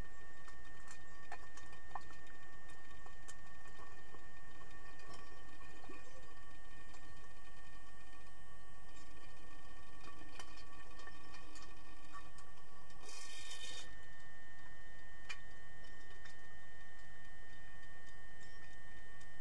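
Underwater pool ambience heard through a submerged camera: a steady hum with several constant tones and scattered faint clicks, and a brief burst of hiss about thirteen seconds in.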